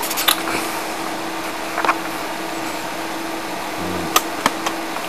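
Steady mechanical hum and hiss, with a few faint short clicks.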